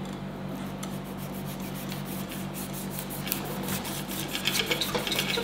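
Kitchen knife sawing through the tough rind of a halved pineapple, a rasping cut made of many short strokes that come thicker from about three seconds in. A steady low hum runs underneath.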